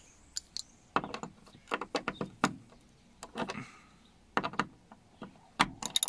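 Irregular small clicks and knocks of a BMW seatbelt's upper anchor hardware (bolt, spacer and spring washer) being handled and fitted back against the door pillar.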